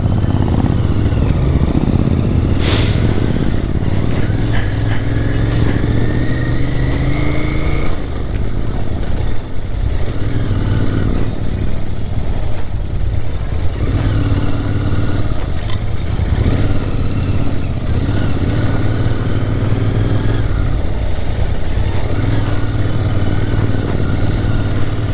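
Royal Enfield Interceptor 650's parallel-twin engine running under the rider at low speed, its note rising and falling with the throttle, climbing steadily for a few seconds early in the stretch. There is one sharp knock about three seconds in.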